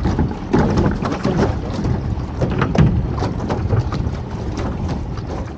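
Wind rumbling on the microphone, with irregular knocks and clatters as an aluminium dinghy is held and tied alongside the boat.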